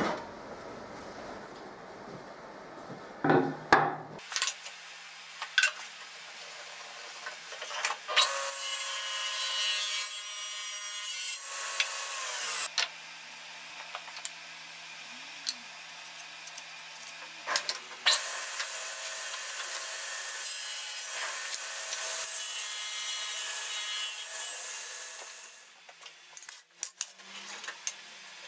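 Table saw cutting wood twice: a cut of about four seconds, then a longer one of about seven seconds. Between the cuts the running saw hums steadily. A few sharp knocks of boards being handled come before the first cut.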